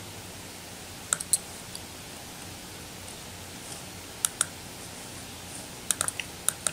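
Computer mouse clicking over a steady faint hiss. There is a pair of sharp clicks about a second in, another pair about four seconds in, and a quick run of several clicks near the end.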